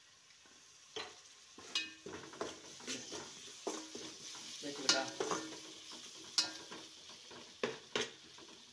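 Metal slotted spoon stirring and scraping onion-tomato masala in an aluminium pot, with irregular clinks against the pot over a light sizzle of the frying masala. The stirring starts about a second in.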